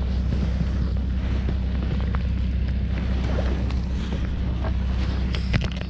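Steady low rumble of wind buffeting the microphone, with a few faint clicks near the end.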